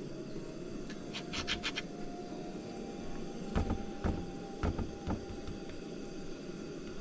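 Round donut cutter pressed through rolled dough and tapped on a plastic cutting board: a brief scratchy scraping about a second in, then four sharp knocks over the next couple of seconds, over a steady low background noise.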